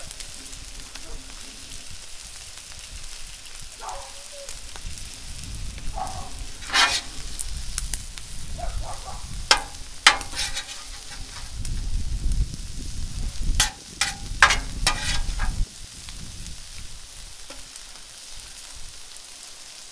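Steak strips, peppers and onions sizzling on a Blackstone flat-top griddle, with a metal spatula scraping and clanking on the steel cooking surface several times in the middle stretch.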